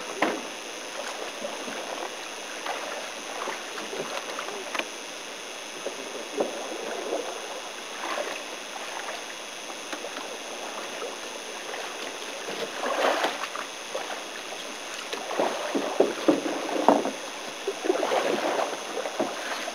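Water sloshing and splashing around a loaded canoe as people climb out and wade in the shallows, with scattered knocks against the hull. From about two-thirds of the way through, the splashing and handling noises come thicker and louder.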